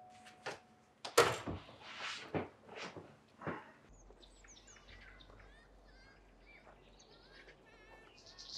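The last of a doorbell chime dying away, then a few sharp knocks and thumps, then small birds chirping and twittering over a low steady hum until a louder knock near the end.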